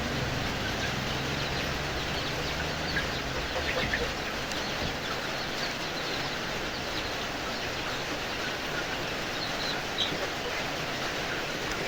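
Chickens clucking and chirping now and then over a steady hiss.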